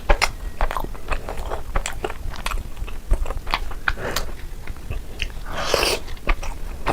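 Close-miked mouth sounds of someone biting and chewing Indian sweets: many short, wet, crunchy clicks, with two longer breathy swells about four and six seconds in.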